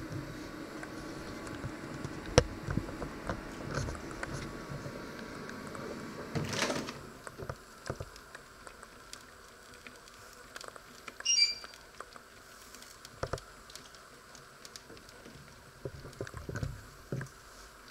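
Scattered small clicks, knocks and rustles from a countertop oven being handled and its door opened, with one sharp click early on and a short high chirp about eleven seconds in.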